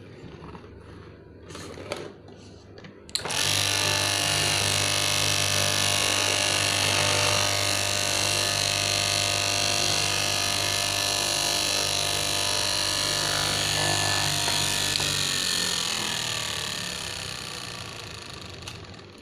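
KM electric fabric cutting machine switched on about three seconds in, after a few clicks. It runs with a steady hum and whir, then is switched off and spins down, falling in pitch over the last few seconds.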